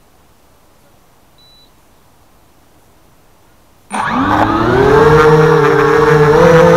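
HobbyKing FPV250 quadcopter: a short high beep, then about four seconds in its brushless motors and propellers spin up suddenly to a loud whine that rises in pitch and then holds steady as the quad lifts off the grass.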